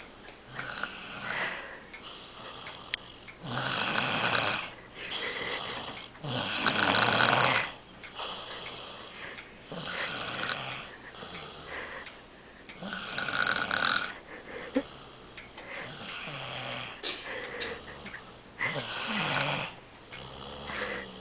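A sleeper snoring, a rasping snore every few seconds, some much louder than others.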